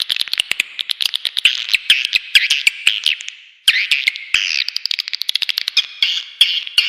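Swiftlet calling sound used to lure edible-nest swiftlets into a bird house: a dense stream of rapid high chirps and twitters mixed with sharp clicks. It breaks off briefly a little past halfway.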